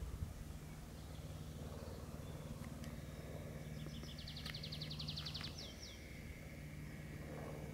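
A songbird sings a fast trill of rapidly repeated high notes lasting about a second and a half, ending in a couple of slurred notes. It sits over a low, steady background hum.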